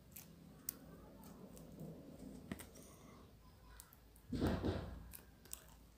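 Faint handling sounds of fingers twisting thin wires: small scattered clicks and rustling. A louder rustle lasts about half a second a little past four seconds in.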